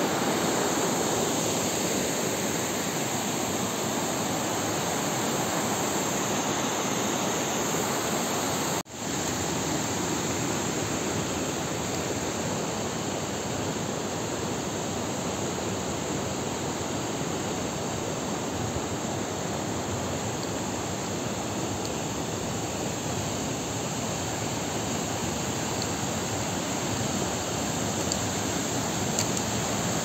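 Steady rush of a mountain stream tumbling over a small waterfall and rocky cascades, with a brief break about nine seconds in.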